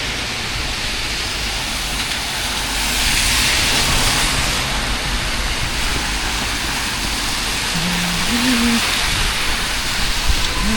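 Heavy rain pouring down in a steady hiss, swelling for a moment a few seconds in, with a low rumble underneath.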